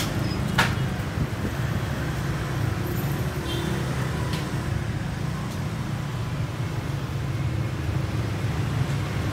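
Steady low rumble of passing street traffic. Two sharp clicks come in the first second, and a few fainter ones follow later.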